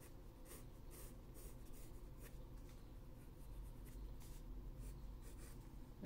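Faint scratching of a graphite pencil on drawing paper in short strokes, about two a second, as a wing outline is sketched over.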